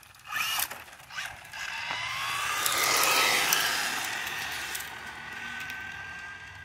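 Remote-control car running fast over gravel. Its motor whines and rises in pitch while the tyres crunch; the sound swells to a peak about three seconds in, then fades as the car moves away.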